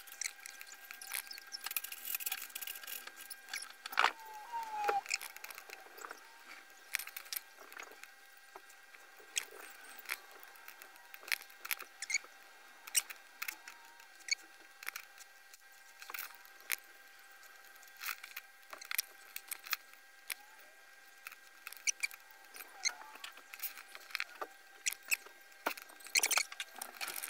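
Flux paste sizzling and crackling under a soldering iron as it reflows pads on a circuit board: irregular sharp pops and crackles over a faint hiss, with a faint steady whine underneath.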